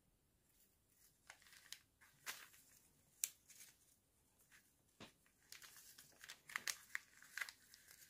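Jute twine being pulled and drawn across a kraft-paper package, with faint scratchy rustling and crinkling of the paper as the string is wrapped and tightened. The rustles come in short scattered bursts, more often in the second half.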